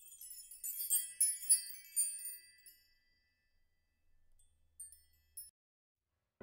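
A sparkling chime flourish of quick, very high bell-like tinkling notes over the first two and a half seconds. Two brief faint tinkles follow later.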